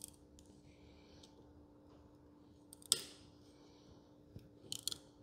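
A 7/16 hand tap cutting threads in a steel plate, turned by hand with a tap wrench: faint scraping with sharp clicks as the metal gives, the loudest about three seconds in and a quick run of clicks near the end.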